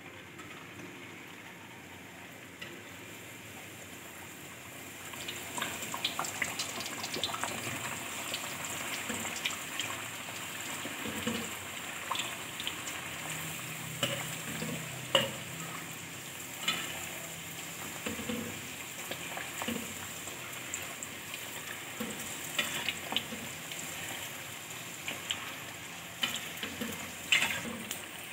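A puri deep-frying in hot oil. It sizzles gently for about the first five seconds, then turns to a louder, crackling sizzle with scattered pops as a slotted spoon presses and bastes the dough and it puffs up.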